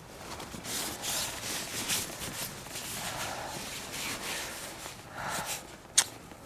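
Sleeping bag and clothing fabric rustling in irregular bursts as someone shifts and pulls the bag's hood around her, with one sharp click near the end.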